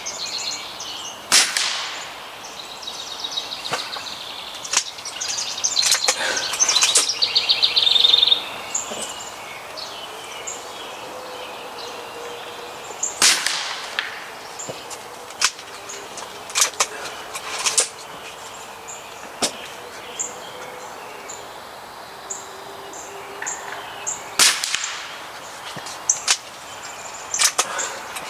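A .22 Gamo Magnum break-barrel air rifle firing several shots several seconds apart, each a sharp crack, with smaller clicks between them. Birds are chirping.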